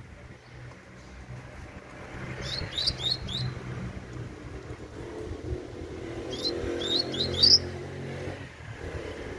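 Young coleiro (double-collared seedeater) of the tui-tui song type singing two short bursts of quick, high, falling notes, about four seconds apart. A low rumble runs beneath the second burst.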